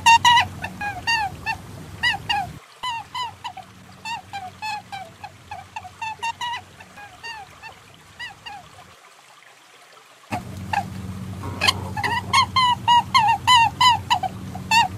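A rapid series of short, honking animal calls, several a second, over a steady low hum: a monitor-lizard lure recording sold as the perentie's call. The calls thin out and grow quieter, stop for about a second shortly after the middle, then resume loudly.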